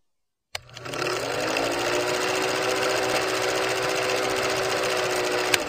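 Film projector sound effect: a steady, fast mechanical rattle over a whirring hum that rises in pitch as it starts, about half a second in, then holds steady and cuts off sharply near the end.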